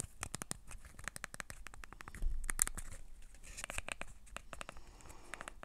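Buttons of an Alexa Voice Remote Pro clicking in quick, irregular succession, several presses a second, as the remote is worked close to the microphone. The housing does not creak. A brief rustle of handling comes about two seconds in.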